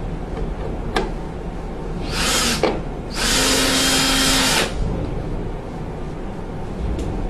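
Cordless drill driving screws into the furnace's sheet-metal jacket to fasten the condensate trap: a short burst, then a longer run of about a second and a half.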